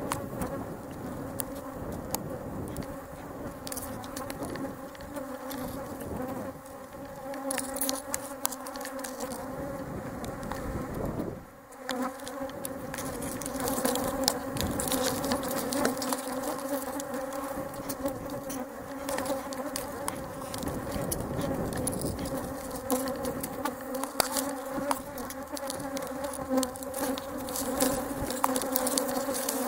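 Honeybees buzzing around an opened hive: a steady swarm hum held on a few pitches, with scattered clicks over it. The hum dips away briefly about eleven seconds in.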